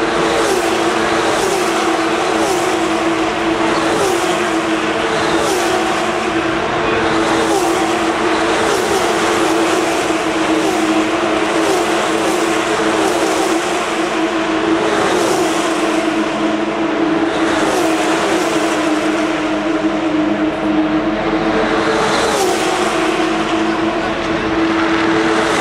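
Formula One cars' 2.4-litre V8 engines at high revs, passing one after another in a continuous scream, with a new car going by every second or two and the pitch dropping as each one passes.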